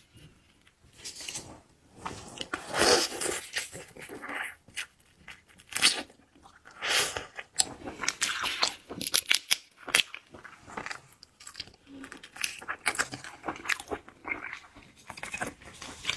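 Close-miked ASMR eating of seafood: irregular crunching and chewing, with bursts of sharp crackling bites.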